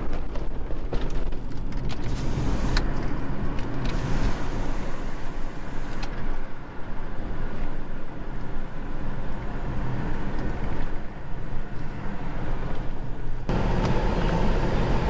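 Car cabin noise while driving: a steady low rumble of engine and road. Near the end it turns suddenly louder and fuller.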